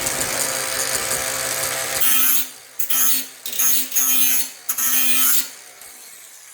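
Angle grinder with a wire wheel buffing rust off steel. It runs steadily for about two seconds, then in about five short bursts.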